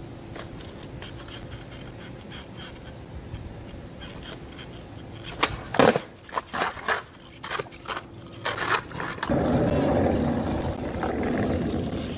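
Skateboard on an asphalt street. About halfway through, a run of sharp clacks as the board strikes the road. For the last few seconds the wheels roll over the asphalt with a steady rumble.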